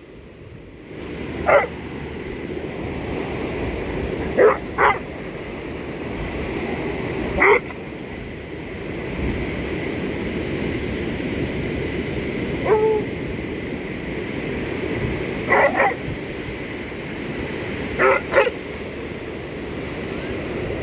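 A dog barking in short single and double barks, about nine in all, over a steady wash of ocean surf and wind.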